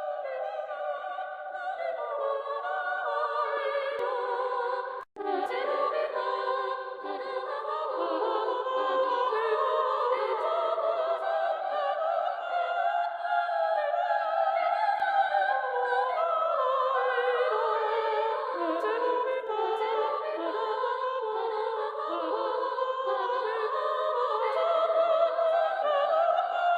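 Singing voices in an opera- or choir-like style, pitched high with no low notes. The sound cuts out briefly about five seconds in.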